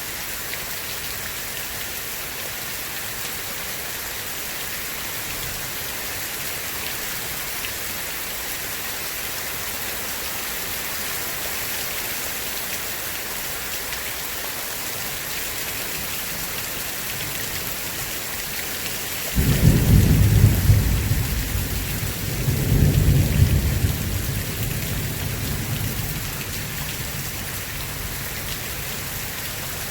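Steady heavy rain hissing, with a roll of thunder breaking in suddenly about two-thirds of the way through, rumbling in two swells and dying away over several seconds.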